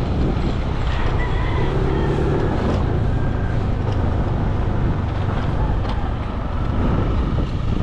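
Motor scooter running steadily under way along a road, with a continuous low engine and road rumble.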